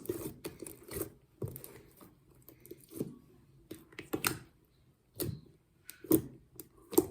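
Slime being handled, making irregular wet pops, clicks and squishes, roughly one every second.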